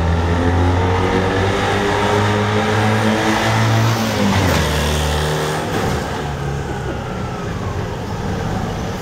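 Small gasoline engine of a Sanfu mini pickup truck running as the truck drives. The engine note climbs, drops just after four seconds in, and grows fainter after about five seconds as the truck moves off.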